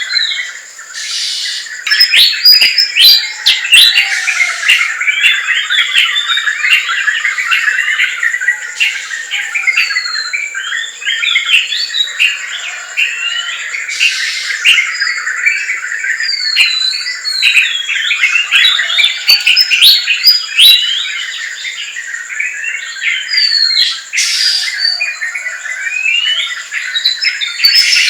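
Dense forest bird chorus: many birds chirping and calling over one another in quick, overlapping phrases, with short rising and falling whistles. A steady high-pitched tone runs underneath throughout.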